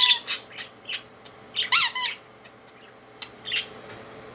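Pet budgerigars chirping and squawking in short, separate calls, the loudest about two seconds in.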